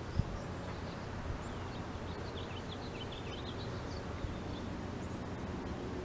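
Faint, rapid high chirping from small songbirds about two to four seconds in, over a steady low outdoor rumble, with one brief low thump right at the start.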